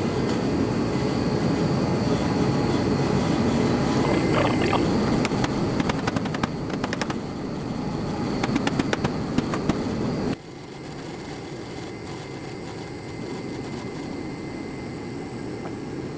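Steady roar of a diesel-fired torpedo heater, with a run of metallic clicks and knocks from parts being handled in the middle. About two-thirds of the way through, the roar drops suddenly to a quieter steady hum.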